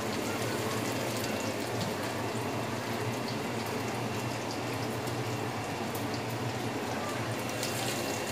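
Battered seafood pieces frying in a pan of hot oil, a steady hiss of sizzling with a low hum beneath.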